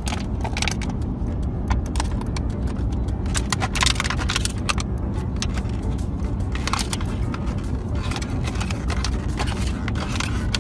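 Steady low road rumble inside a moving car, with many sharp clicks in clusters over it, thickest about four seconds in.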